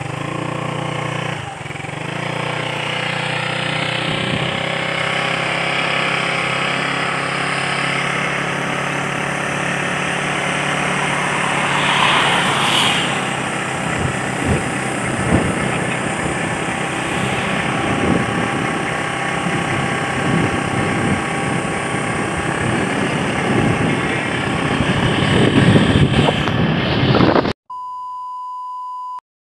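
Motorcycle engine running steadily while riding along the road, heard from the pillion seat with wind noise on the microphone. Near the end it cuts off suddenly, replaced by a steady high-pitched test tone.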